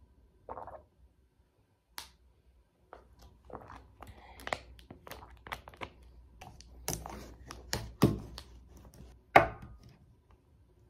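Irregular clicks, taps and knocks with short rustles, as of objects being handled and set down. The sounds get busier after about three seconds, and the loudest knock comes near the end.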